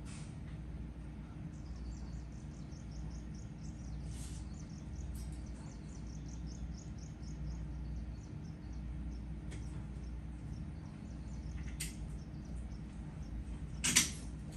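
Steady low hum with a fast, regular run of faint high chirps and a few light ticks, then one sharp click or knock near the end, the loudest sound.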